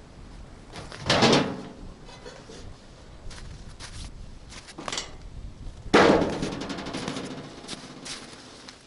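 A snowmobile's front hood being handled and shut: a loud knock about a second in, a smaller click, then a louder bang about six seconds in that rings on and fades over a couple of seconds.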